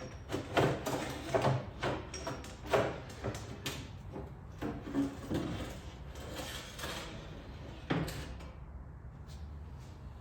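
Irregular clunks, knocks and scraping as a car's door glass is handled free of the door, with sharp knocks about half a second, a second and a half and three seconds in, and a last one near eight seconds.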